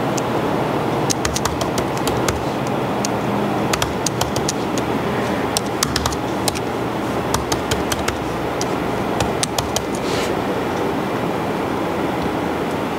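Computer keyboard keys clicking in quick, irregular runs as a password is typed, over steady background noise.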